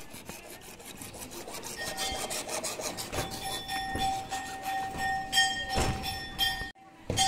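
Hacksaw cutting rigid PVC electrical conduit by hand: quick, regular rasping strokes. A thin steady tone rings underneath from about two seconds in.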